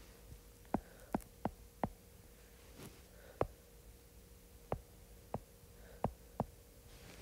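Stylus tapping and clicking on an iPad's glass screen while handwriting, about ten sharp irregular ticks, over a faint steady hum.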